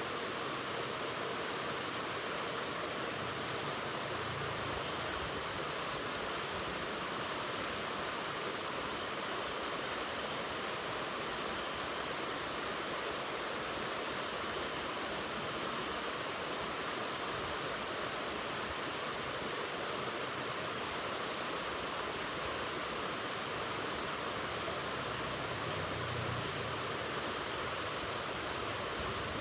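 Waterfall: a steady, even rush of falling water, its hiss sitting high, with no breaks or changes.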